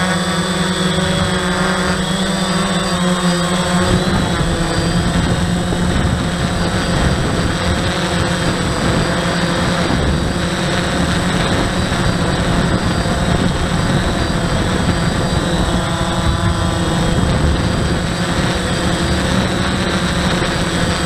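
DJI Phantom quadcopter's motors and propellers whirring steadily, heard from the camera mounted on the drone itself, with a constant high whine over the hum. About four seconds in, a rougher low rumble joins as the drone descends toward the ground.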